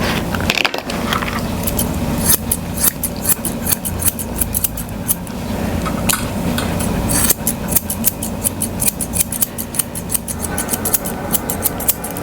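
Grooming shears snipping through dog hair in quick runs of short, crisp cuts.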